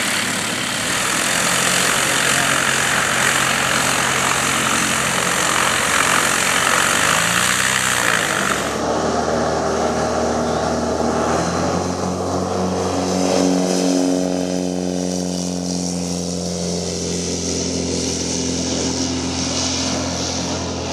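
Single-engine biplane engine and propeller running at high power during take-off. A loud rush of noise changes abruptly about nine seconds in to a steadier engine drone with clear pitched tones as the plane lifts off.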